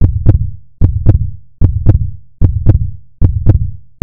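A deep heartbeat-like double thump, each beat with a sharp click on top, repeating steadily about every 0.8 seconds.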